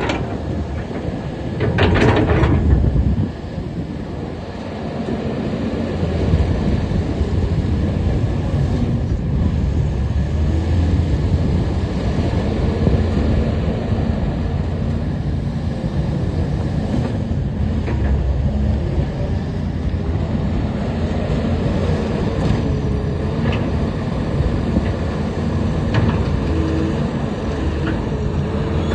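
SANY 215 crawler excavator's diesel engine running steadily, with a louder surge about two seconds in.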